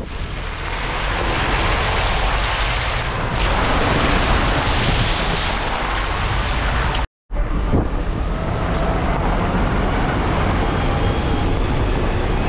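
A vehicle driving over a rough gravel road: steady, loud tyre and road rumble with wind noise. It breaks off for a moment about seven seconds in and then carries on.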